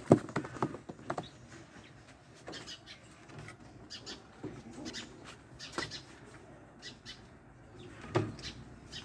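Handling noises at wooden pigeon cages: a sharp knock as a board is set down at the start, the loudest sound, then scattered knocks, rattles and rustles as a pigeon is taken out of its cage, with faint calls from the caged pigeons.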